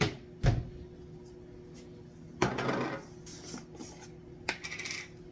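Kitchen handling noises: a sharp knock, then a heavier thump half a second later. About two seconds in comes a scraping rustle, followed near the end by a click and a short rattle as a plastic cornstarch container is handled and its lid opened.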